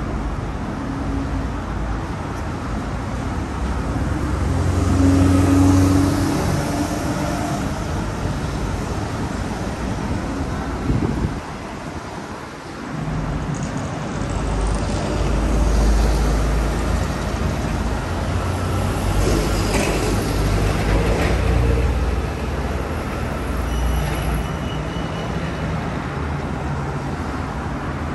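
Road traffic on a busy city street: motor vehicles driving past one after another, a low rumble that swells as each passes and fades, with a brief lull about halfway through.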